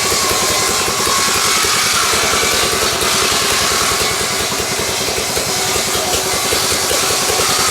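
An engine running steadily, its rapid firing pulses unbroken throughout.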